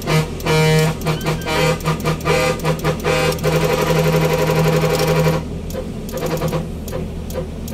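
Mitsuba Pro 25-tone musical horn playing a rapid tune of short pitched notes, with a longer held note from about three to five seconds in, then softer notes near the end.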